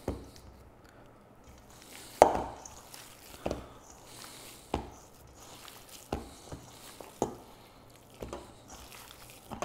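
Hands squeezing and kneading ground beef with barbecue sauce and cheddar in a stainless steel bowl: short squelches and soft thumps at irregular intervals, about once a second, the loudest about two seconds in.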